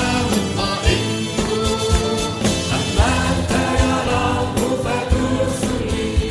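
Arabic Christian hymn sung over instrumental backing with a regular drum beat.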